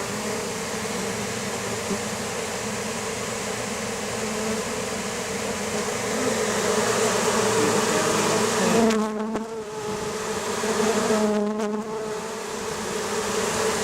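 Dense buzzing of many honeybees flying around a freshly hived swarm. A lower, nearer buzz stands out twice in the second half.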